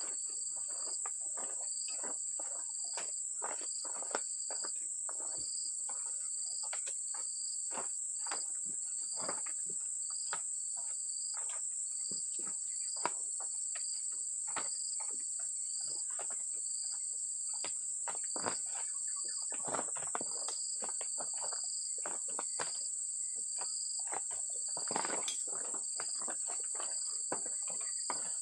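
Steady high-pitched insect drone, with a second insect chirping in regular pulses about every three-quarters of a second. Over it come irregular knocks and thuds of oil palm fruit bunches being tossed up onto a heaped dump-truck load, a few a second.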